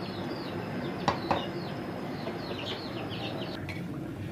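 A wooden spatula knocks twice against a clay cooking pot about a second in, over a low steady background noise. Small birds chirp repeatedly in short, quick, falling notes throughout.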